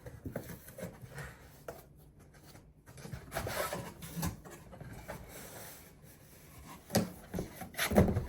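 Cardboard packaging being handled and opened by hand: irregular rustling and scraping, with two sharp knocks near the end.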